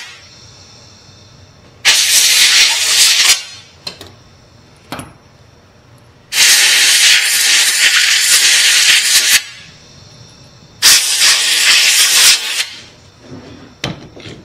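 Compressed-air blow gun hissing in three sharp-edged bursts, the middle one about three seconds long and the others shorter, blowing grease out of tapered roller wheel bearings. A few light clicks fall between the bursts.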